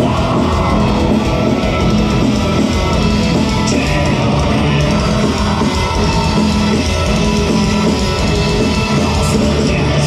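Symphonic black metal band playing heavy metal: distorted electric guitars over a drum kit, loud and dense throughout.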